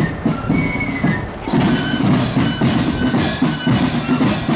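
Marching flute band playing a march in the street: high flute melody over steady bass and side drum beats, getting fuller about a second and a half in.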